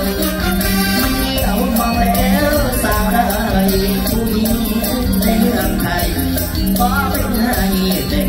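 Live Thai Isan stage band playing through a concert PA: a steady beat from drums and shaker-like percussion under a wavering melody line, with saxophones in the band.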